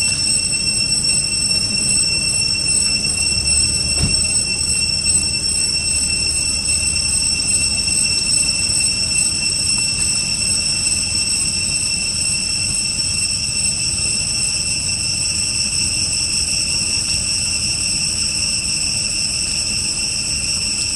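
Steady, high-pitched insect drone, a continuous whine that holds one pitch with no break.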